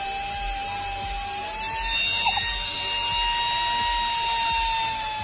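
Handheld rotary tool with a cutoff wheel running at speed with a steady high whine that rises slightly about a second and a half in. The wheel is grinding the ground electrode of a spark plug to side-gap it.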